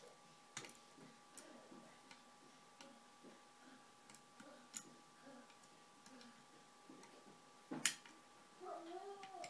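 Faint, scattered metallic clicks of a lever-lock pick working the levers of a five-lever Union Strongbolt mortice lock, with one sharper click a little before the end. Near the end comes a short wavering pitched sound.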